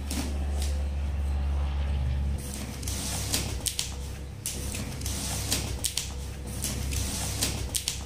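Packing tape being peeled off a cardboard shipping box and its flaps pulled open: a run of sharp crackles, rips and cardboard scrapes that thickens from about two and a half seconds in. Under it a low steady hum drops in level about two seconds in.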